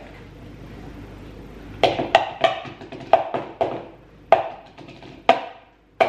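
About ten sharp, hollow knocks at an uneven few per second, starting about two seconds in: a scraping tool striking the inside of a pumpkin being hollowed out.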